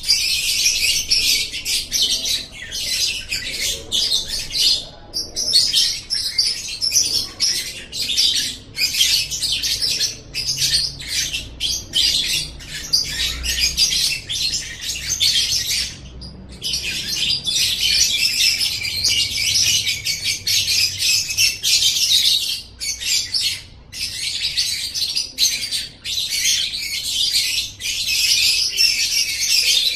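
Lovebird singing its long, rapid, high-pitched chattering 'ngekek' song, the extended chatter that lovebird keepers prize. It runs almost without a break, with a few brief pauses.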